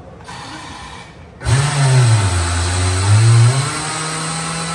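A machine motor starts up loudly about a second and a half in over a strong hiss. Its pitch sags as it takes the load, then recovers and holds steady until it cuts off at the end.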